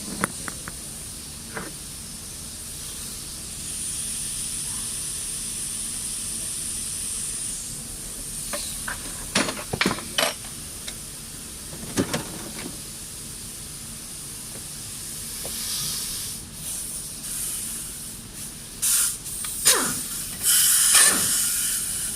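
Bolt removal under a car: scattered short metal clinks and knocks from tools on the cross member bolts, over a steady hiss. The hiss grows louder from about four to seven seconds in, and the clinks cluster near the middle and near the end.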